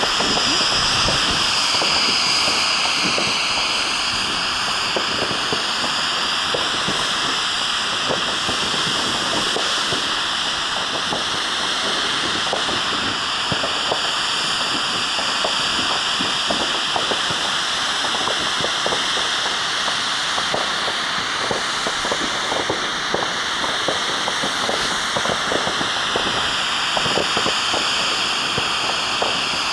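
Ground fountain firework spraying sparks: a loud, steady hiss with dense crackling throughout.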